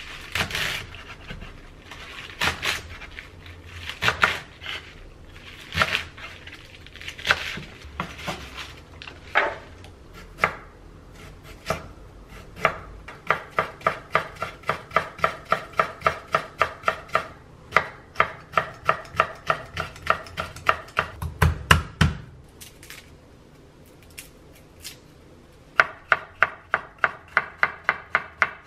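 Chef's knife chopping vegetables on a wooden cutting board, first cutting leafy bok choy, then slicing ginger and chili and mincing garlic. It starts with a few spaced cuts, then settles into rapid, even knocking of about four strokes a second. After a pause of a few seconds, the rapid chopping starts again near the end.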